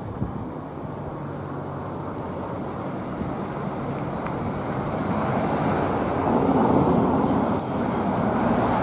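The low rumble of a departing freight train fades out in the first couple of seconds. A rushing road-traffic noise then grows steadily louder, the sound of a vehicle approaching on the road.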